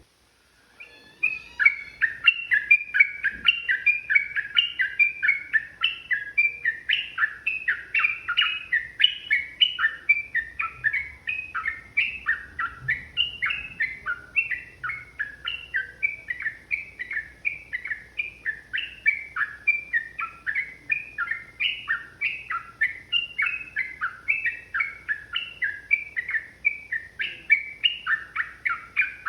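Sooty-headed bulbul singing a long, fast run of short chirping notes, several a second, starting about a second in and going on without a break.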